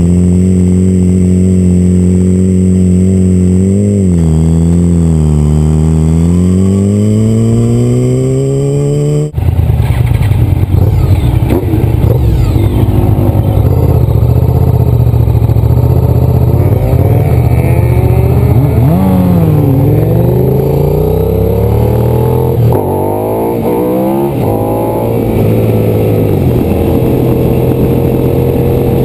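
Motorcycle engines running on the road, picked up by a camera on the bike. The engine pitch dips and then climbs steadily as the bike accelerates. After a sudden cut about nine seconds in, the sound is noisier, with engine pitches rising and falling as the riders speed up and slow down through the bends.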